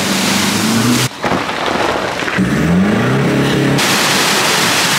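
Four-wheel-drive engines revving as the vehicles push through deep muddy water, over a heavy wash of splashing spray. The sound changes abruptly twice as the shots cut, and an engine's pitch climbs in a rev about two and a half seconds in.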